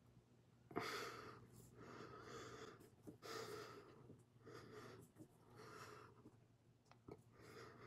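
A person breathing hard in and out through the mouth and nose, faint sharp breaths about once a second, while chewing a ghost pepper: a reaction to its heat.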